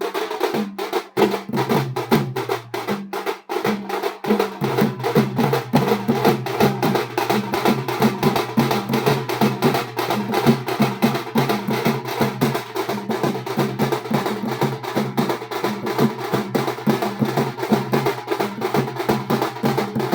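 Tasha drums beaten rapidly with sticks in a dense, fast, unbroken rhythm, over a steady low tone.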